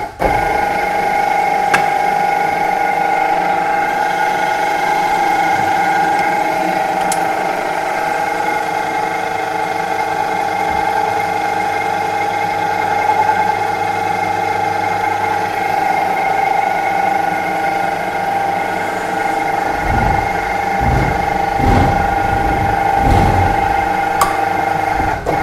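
Two-post vehicle lift running down, its hydraulics giving a steady, several-pitched whine as it lowers a recovery body onto a truck chassis. A few low clunks near the end as the body settles onto the chassis.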